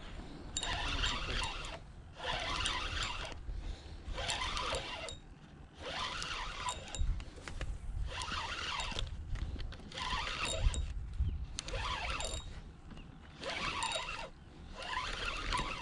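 Spinning reel being cranked to retrieve line, a grainy mechanical whir in repeated spells of about a second each with short pauses between.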